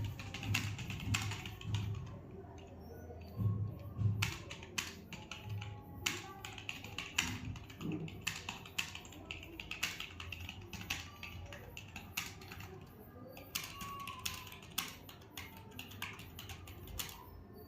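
Computer keyboard being typed on: irregular key clicks, a few a second.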